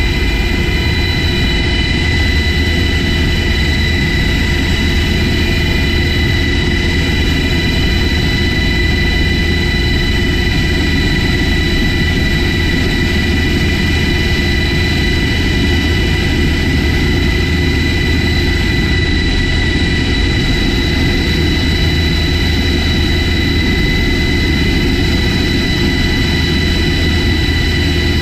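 HH-60G Pave Hawk helicopter's twin turboshaft engines running steadily: a high turbine whine over a low drone, heard from the cabin door.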